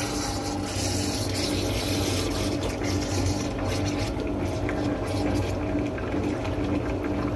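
Steady hum of a drain-cleaning machine's pump, with water rushing as the hose works in the floor drain.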